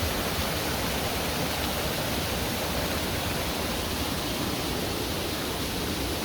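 Water pouring over a small stream dam, a steady rushing with no breaks.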